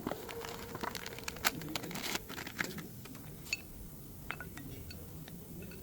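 Irregular clicks and light taps of parts and hand tools being handled during inner tie rod work, thickest in the first three seconds. A faint steady hum sounds under the first two seconds.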